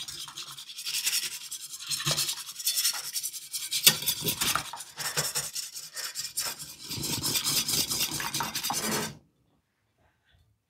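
Stainless steel wire balloon whisk scraping rapidly around a glass mixing bowl, beating prebiotic fiber into a little half and half. The whisking stops suddenly about nine seconds in.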